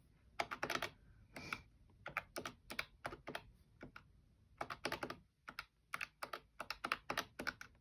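Plastic keys of a desktop calculator being tapped in quick, irregular runs of clicks with short pauses between them, as figures are entered and added up.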